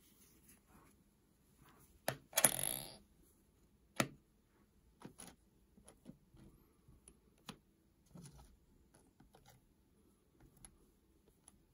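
Coins being handled on a hard surface: a sharp click about two seconds in, followed at once by a brief scrape, another click about four seconds in, then faint scattered ticks.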